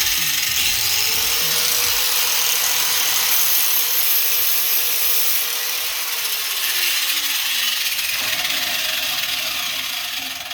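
Electric power grinder running and grinding metal off a welding ground clamp to open it up: a loud, steady hiss of grinding over a motor whine. The whine slides down in pitch past the middle while the grinding goes on, then the sound tapers off near the end.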